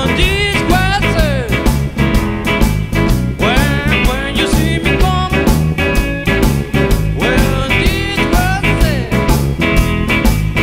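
Blues band playing: electric guitar, bass guitar and drum kit, the guitar line bending notes up and down over a steady beat.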